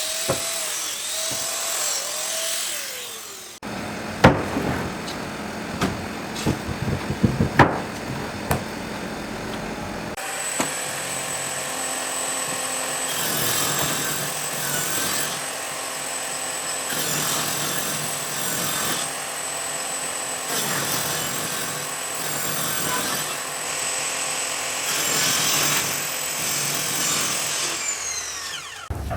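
Power tool working wood. About four seconds in comes a run of sharp knocks and taps, and from about ten seconds on a tool runs steadily with a high whine and a rhythmic pulse.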